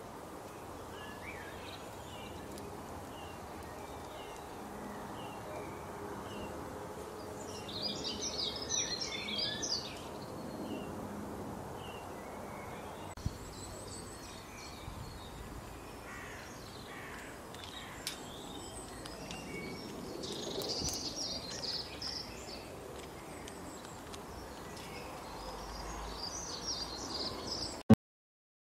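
Outdoor ambience with small birds calling and singing in bursts over a steady background hiss. Near the end there is a click, and then the sound cuts off suddenly.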